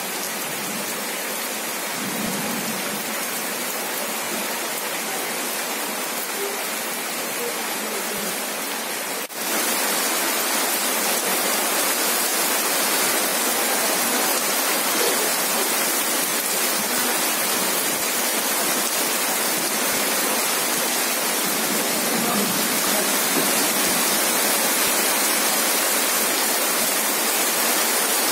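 Rain falling steadily, an even hiss with no distinct drops standing out. It drops out for a moment about nine seconds in and comes back a little louder.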